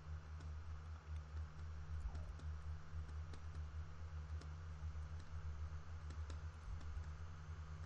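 Steady low electrical hum with faint, irregularly spaced clicks from working the computer's input devices while painting.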